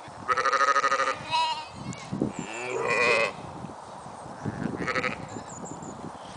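Lambs bleating: about four high, wavering bleats, the loudest in the first second and another around three seconds in, with a shorter one near five seconds.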